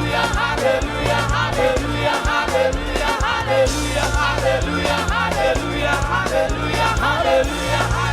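Upbeat live gospel praise music: many voices singing and shouting together over a band with a steady bass line and a regular drum beat.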